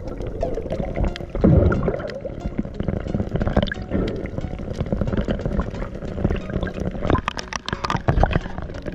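Underwater water noise and gurgling, heard on a camera beneath the surface, with many scattered sharp clicks and crackles throughout.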